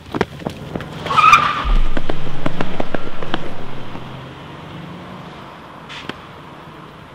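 A car speeding away: a short tyre squeal about a second in, then the engine running hard with a pulsing note for about two seconds before fading into the distance.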